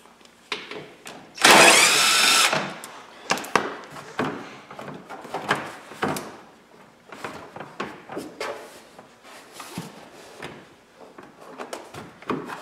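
Cordless drill/driver running for about a second, backing out a bolt that holds a plastic lower fascia panel, followed by scattered light clicks and knocks of the plastic panel and tool being handled.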